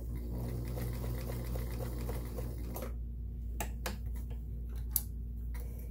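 Sears Kenmore 1802 sewing machine running, sewing a straight seam at its longest stitch length, for about three seconds, then stopping. A few sharp clicks and knocks follow as the machine and fabric are handled, the loudest about five seconds in.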